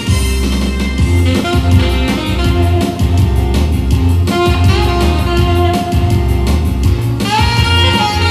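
Band backing track with electric guitar, bass and drums playing a steady beat. About seven seconds in, a saxophone comes in with a note that slides up and is held.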